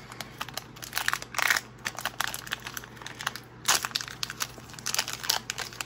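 Foil Magic: The Gathering booster-pack wrapper crinkling and being crushed in the hands, in irregular sharp rustles, loudest about a second and a half in and again near four seconds in.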